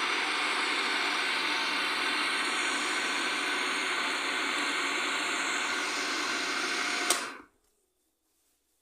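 Electric food processor running steadily as it grinds a ground-beef mixture. About seven seconds in it is switched off with a click and the motor spins down within half a second.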